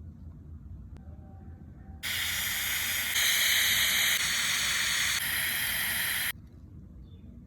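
Dental air-water syringe hissing for about four seconds, starting and cutting off abruptly and shifting in level a few times along the way.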